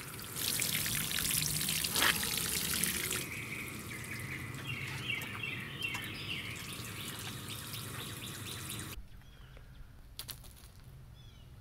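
Water pouring from a plastic watering can into potted plants, a steady splashing hiss that is loudest for the first three seconds, then eases. It cuts off sharply about nine seconds in.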